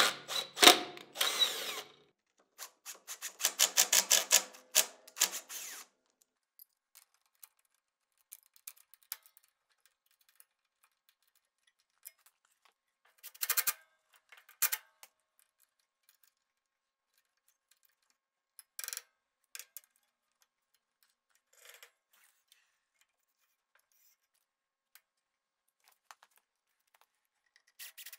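Cordless impact driver hammering self-tapping screws into the planer's metal body: two loud bursts of rapid clatter in the first six seconds, then a few short bursts spread through the rest, with long quiet stretches and faint clicks between.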